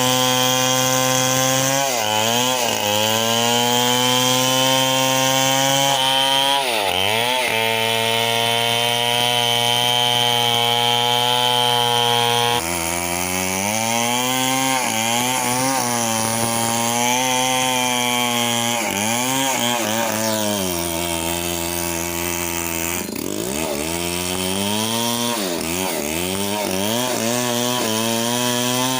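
Chainsaw engine running at high revs while cutting wood, its pitch sagging and recovering several times as the chain bites and loads the engine. It drops lowest for about three seconds in the second half.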